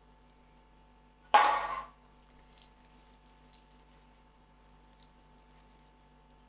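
A metal tablespoon set down in a stainless steel mixing bowl about a second in: one sharp clatter with a brief ringing as it fades. After that come only faint, soft sounds of hands rolling minced chicken into a ball.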